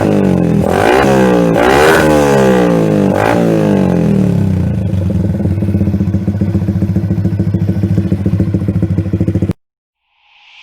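Yamaha X1R's single-cylinder four-stroke engine exhaling through an HGM aftermarket muffler: revved in a few quick blips, then settling into a steady, pulsing idle. The sound cuts off suddenly near the end.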